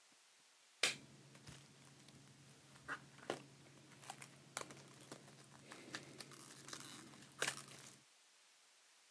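Plastic card sleeves and pack wrappers crinkling and crackling in the hands during trading-card handling: an irregular string of sharp crackles and clicks, the loudest about a second in and again near the end.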